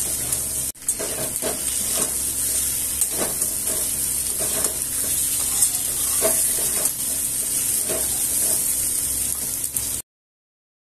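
Potatoes and onions sizzling in hot oil in a metal wok while a spatula stirs and scrapes them against the pan, with a scrape every second or so. The sound drops out briefly just under a second in and cuts off suddenly near the end.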